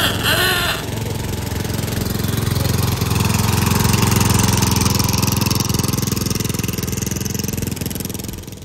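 A vehicle engine running at a steady speed, growing louder over the first few seconds and holding there. A brief voice-like call sounds right at the start.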